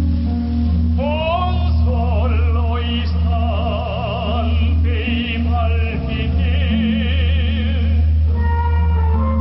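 A man singing into a handheld microphone in an operatic style, with wide vibrato on held notes, over an instrumental accompaniment with a steady bass.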